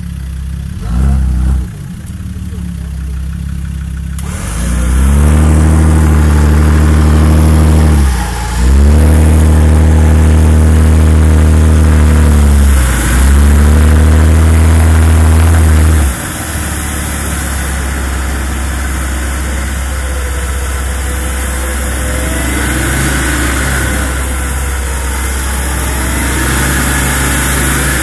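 Land Rover Discovery's engine running under load as the vehicle is winched up a muddy slope. It pulls hard in three long surges, each rising and then falling away, with short breaks between them. After that it drops back to a lower, steady run.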